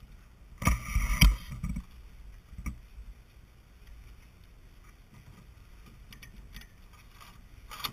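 A burst of sharp knocks and clicks about a second in, then an odd faint tick: the deck fittings and gear of a Snipe dinghy being handled as it is rigged.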